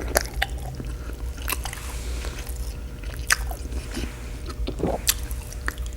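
Close-miked, wet chewing of a juicy birria taco dripping with consomé: irregular squishy mouth sounds with several sharp smacks, over a low steady hum.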